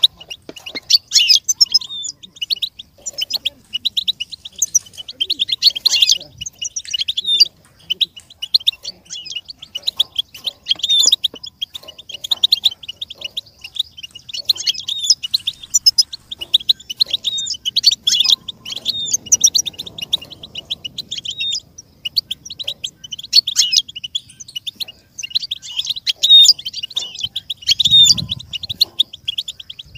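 European goldfinch singing: long runs of rapid, high twittering notes with brief pauses between the phrases.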